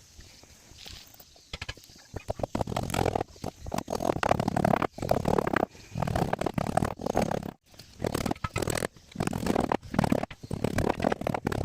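Repeated rasping strokes on wood, about one a second with short pauses between them, from a hand tool working a plank.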